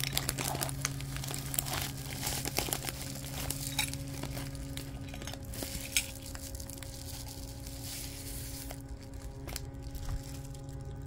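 Plastic bubble wrap and packaging crinkling and crackling as it is pulled open by hand. The crackling is densest in the first half and thins out near the end.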